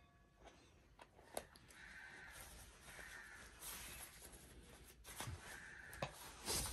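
Faint rustling and handling sounds as a small dog is pulled into a fleece hoodie, with a few soft clicks and short scratchy rustles. There is a louder bump at the very end.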